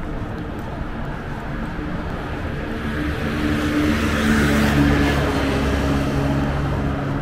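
A motor vehicle passing close by, its engine and tyre noise swelling to a peak a little past the middle and then easing off, over a steady hum of traffic.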